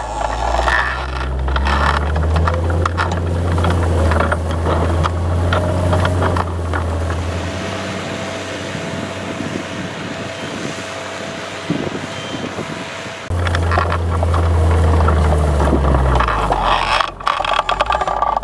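New Holland T7060's six-cylinder turbodiesel running steadily while pulling a mounted five-furrow plough through the soil, with scraping and rattling over it. The deep engine drone falls away for several seconds in the middle, then comes back strongly.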